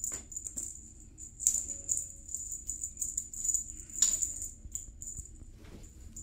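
A small jingle bell, as in a kittens' bell toy, jingling in irregular shakes and jolts with a bright ringing between them; it stops right at the end.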